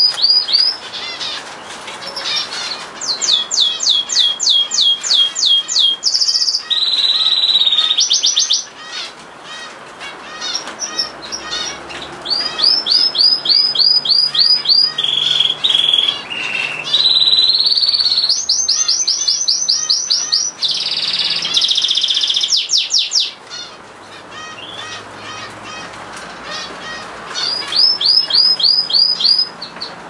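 Domestic canary singing in long phrases: rapid trills of repeated high notes alternating with held steady notes and rising glides. The song drops to softer twittering a third of the way in and again before a last trill near the end.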